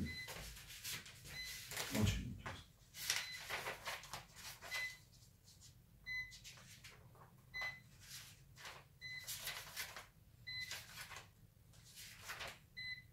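Short high electronic beeps, single and in pairs, repeating irregularly every second or so from a toy quadcopter and its remote controller. Over them, the paper instruction manual rustles as its pages are handled and turned, with a soft thump about two seconds in.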